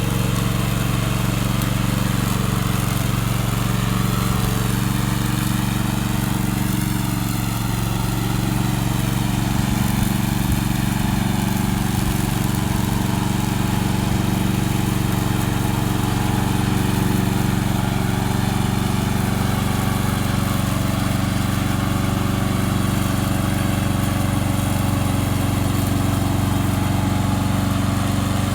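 Gasoline engine of a remote control slope mower running steadily at a constant speed.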